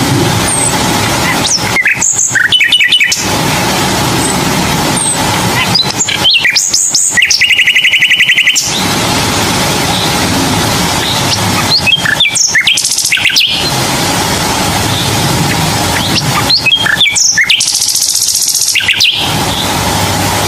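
Bird chirps and trills in several short bursts over a steady hiss.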